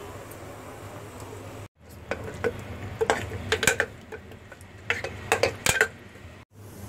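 Metal spoon stirring cooked curry in an aluminium pressure cooker, clinking and scraping against the pot in two runs of quick knocks.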